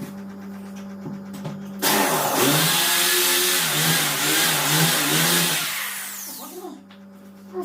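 Handheld electric power tool running for about four seconds, starting suddenly, its motor pitch wavering up and down, then winding down. A low steady hum sounds under it.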